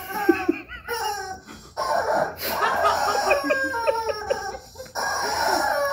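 A rubber squeaky dog toy squeaking over and over as a husky bites and squeezes it, each squeak a wavering squeal that slides down in pitch.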